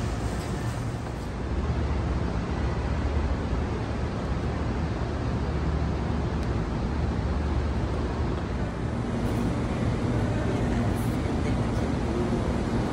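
Steady low rumbling background noise with a hiss over it, unchanging and with no distinct events.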